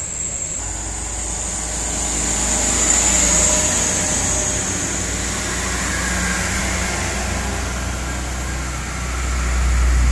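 Loaded trucks driving past on an uphill road: diesel engine rumble and tyre noise, loudest about three seconds in as a sugarcane truck goes by, then a deeper engine rumble building near the end as the next loaded truck approaches.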